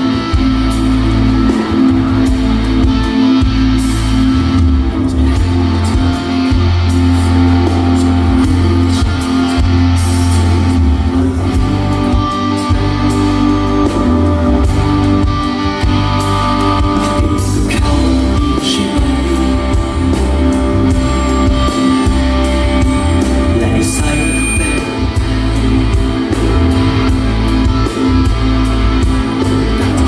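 Loud live band music: guitar over heavy bass and a steady drum beat.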